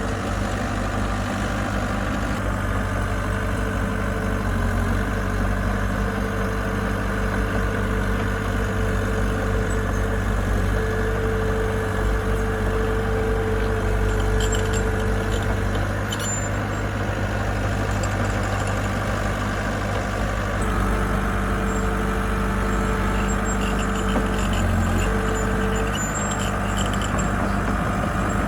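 Diesel engine of heavy earth-moving equipment running steadily, its pitch shifting slightly about five seconds in and again near the end.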